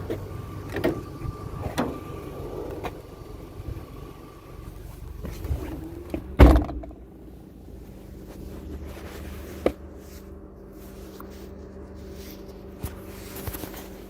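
A few sharp clicks over a steady high tone, then one loud thud about six and a half seconds in, fitting a car door being shut; a low steady hum follows.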